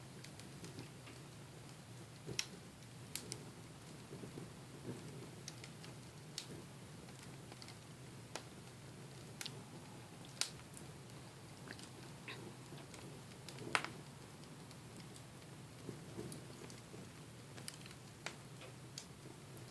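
Wood fire in a fireplace crackling: irregular sharp pops and snaps, a few louder ones, the loudest about two-thirds of the way through, over a faint low steady hum.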